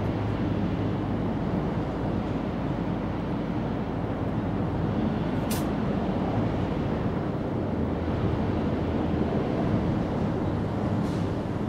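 Steady low rumble of outdoor background noise, with a single sharp click about five and a half seconds in.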